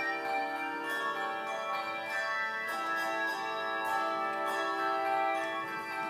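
Handbell choir ringing a piece: chords of tuned handbells are struck every so often and left to ring, their notes overlapping.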